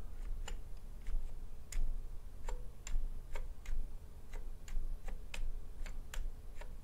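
Keys on an Amiga 1200's built-in keyboard being pressed one at a time, giving an uneven run of sharp clicks at about two a second.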